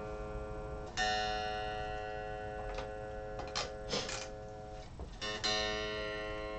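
Line 6 Shuriken Variax SR250 electric guitar strummed to check its tuning: one chord about a second in and another about five seconds in, each left to ring and slowly fade, with a few light clicks in between.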